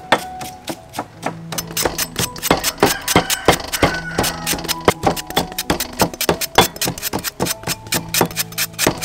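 Instrumental background music with sustained notes over a quick, steady beat of sharp clicks.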